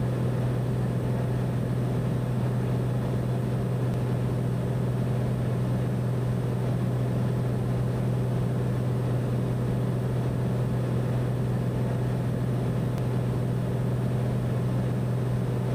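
Cessna 208B Caravan's PT6A turboprop engine and propeller droning steadily in the cockpit as the aircraft flares and touches down. It is a low, even hum that does not change in level, with no thump at touchdown.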